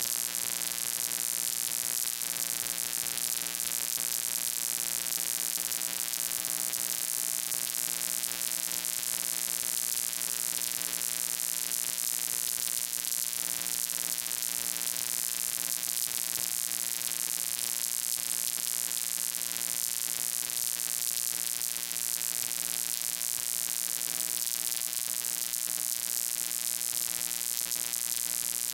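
Steady electrical buzzing hum under a loud hiss, unchanging throughout.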